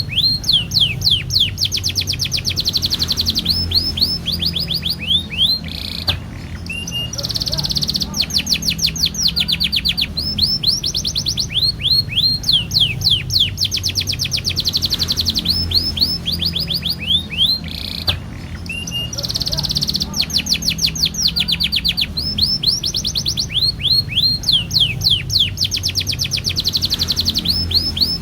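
Domestic canary singing long rolling song: rapid series of sweeping chirps and fast trilled rolls, in phrases of several seconds broken by short pauses. A steady low hum runs underneath.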